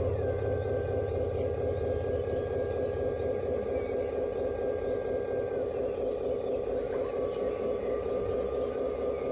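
Hydraulic system of a Lesu radio-controlled Liebherr 960 Demolition excavator model running steadily. A thin whine over it shifts pitch: it drops just at the start, stops about six seconds in and comes back lower about a second later.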